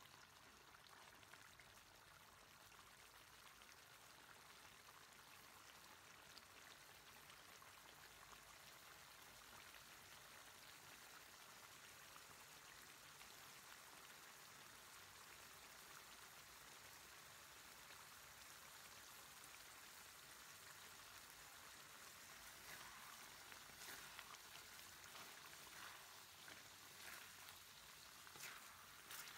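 Faint, steady sizzling and bubbling of pork and long beans simmering in a wok, with a few faint spatula knocks near the end.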